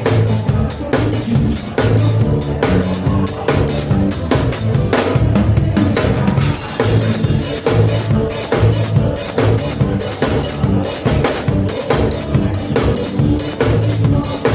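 Live gaúcho fandango band playing an instrumental passage: button accordion (gaita) over a drum kit keeping a fast, steady beat, with bass.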